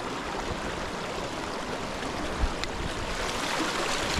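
Small rocky stream rushing and splashing over stones in a shallow riffle, growing a little louder near the end. A single low thump about two and a half seconds in.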